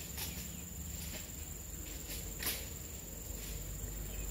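A steady high-pitched insect drone, cricket-like, with a few soft clicks and rustles of movement in the undergrowth, one a little louder about two and a half seconds in.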